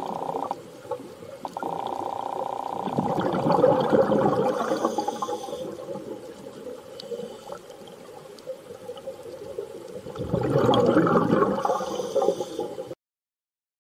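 Rushing underwater water noise that swells and fades twice, with a faint steady hum beneath it, cutting off abruptly near the end.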